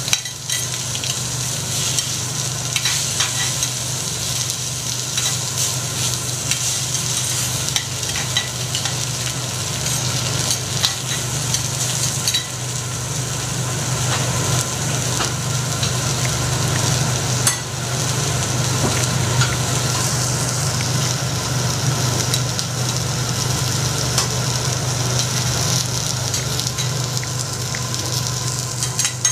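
Food sizzling steadily on a hot teppanyaki iron griddle, with scattered sharp clicks of metal spatulas on the plate and a steady low hum underneath.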